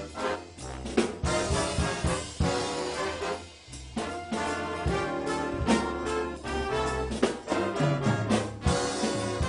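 Instrumental music from a student band: brass instruments playing sustained notes over a drum kit, with sharp drum hits through it.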